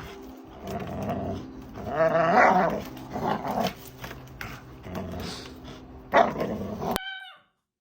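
A dog growling, with a few louder barks; the sound cuts off abruptly about seven seconds in.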